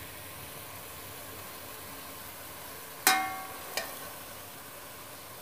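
Marinated chicken pieces sizzling steadily in a metal pot as the vinegar-and-water marinade cooks off. About three seconds in, a perforated metal spoon strikes the pot once with a ringing clang, followed by a lighter tap.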